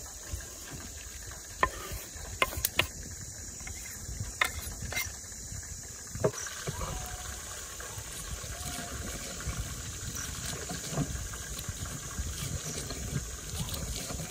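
Chopped shallots, garlic and tomato tipped off a wooden board into a stone mortar, with a few sharp knocks of knife and stone. About halfway through it turns to a stone pestle crushing and grinding the chillies, shallots and garlic against the mortar, a steady run of small crunching ticks.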